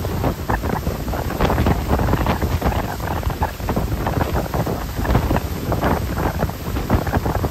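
Strong wind buffeting the microphone aboard a moving lake passenger boat. It comes as an uneven, gusty rumble heaviest at the low end, with no steady engine tone standing out.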